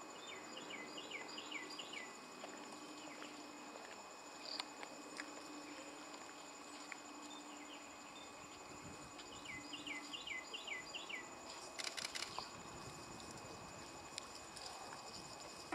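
Faint wetland ambience: a steady high-pitched insect drone, with a songbird twice singing a quick run of repeated down-slurred whistled notes, once near the start and again about ten seconds in. A few sharp clicks come around twelve seconds in.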